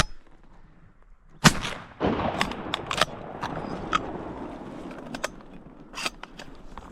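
A shotgun shot about a second and a half in, a follow-up shot to finish a wounded duck, then a rushing noise that fades over a couple of seconds and a series of sharp clicks and knocks.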